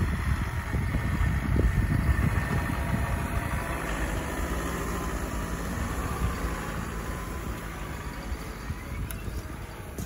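Off-road vehicle engine running steadily, under a gusty low rumble over the first few seconds that eases about four seconds in.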